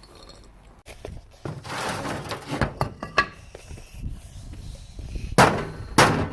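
Two loud, sharp bangs about half a second apart near the end, after a stretch of rushing, scraping noise and scattered clicks and knocks.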